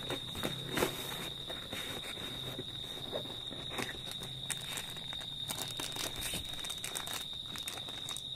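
Hands handling a padded black fabric rifle backpack and its plastic packaging: rustling, crinkling and scattered light clicks. A thin steady high-pitched tone runs underneath.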